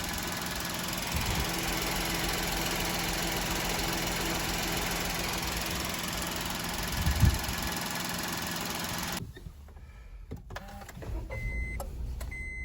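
Honda kei car's CVT whining while driving: a steady drone over road noise, the kind of transmission noise that led to a CVT replacement. There is a low thump about seven seconds in. About nine seconds in the sound drops to a much quieter scene, with short high beeps near the end.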